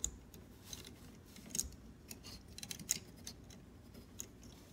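Small plastic parts of a Bandai Super Minipla Voltron model kit figure clicking and tapping as a piece is pushed into place by hand: a handful of faint, irregular clicks.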